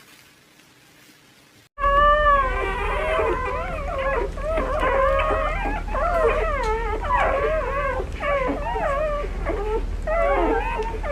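Dog howling and whining in long, wavering, overlapping cries that start suddenly after a near-silent second or two, over a steady low hum.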